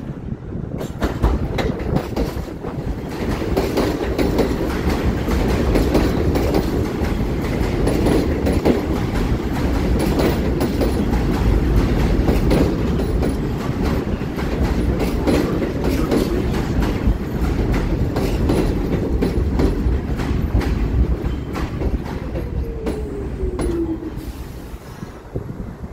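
R46 subway train running into a station, its wheels clattering over rail joints with a heavy rumble. Near the end a falling whine comes in as it slows to a stop.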